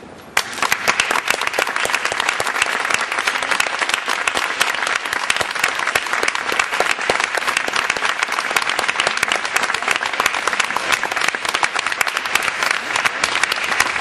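Audience applauding, the clapping breaking out about half a second in and keeping up steadily.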